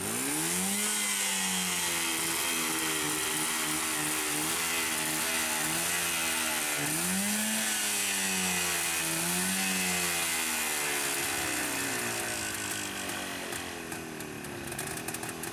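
Jawa 350 two-stroke twin motorcycle engine running and being revved, the pitch rising and falling again about three times, then settling lower near the end.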